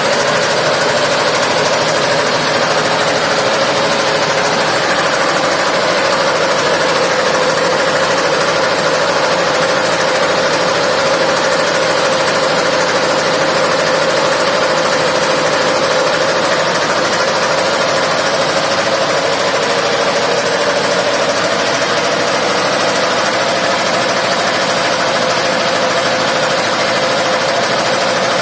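A 160 cc motorcycle engine running steadily, driving a 50-inch blower fan, with a constant hum whose pitch sags slightly and then holds.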